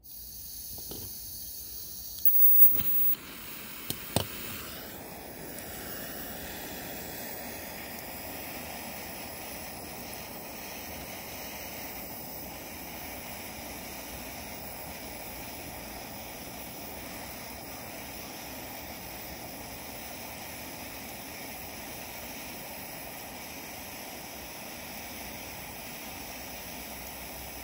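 Handheld gas blowtorch: gas hisses, a few sharp igniter clicks come in the first seconds, the loudest about four seconds in, and then the flame burns with a steady hiss as it heats a stainless steel 3D printer nozzle to burn off the residue.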